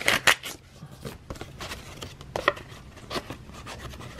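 Paper envelope being torn open by hand: a few sharp rips right at the start, then softer, scattered tearing and paper crackle.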